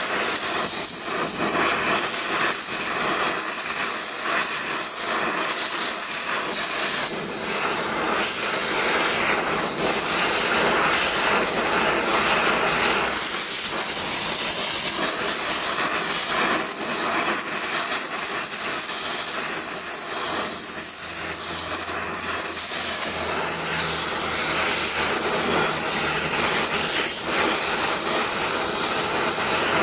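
Oxy-acetylene torch flame hissing steadily as it heats a gravity ingot mold, with a couple of brief dips in loudness.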